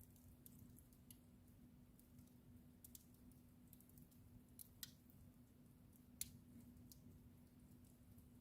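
Wood fire crackling faintly, with scattered sharp pops, the loudest about six seconds in, over a steady low hum.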